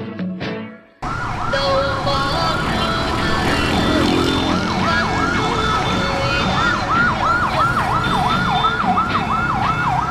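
Music cuts off about a second in, giving way to street traffic noise with an emergency siren in a fast up-and-down yelp, about three sweeps a second. The siren grows louder in the second half.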